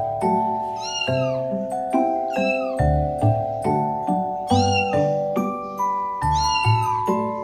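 Background music of sustained melodic notes over a pulsing bass beat, with the same cat meow repeated about four times in time with the music as part of the track.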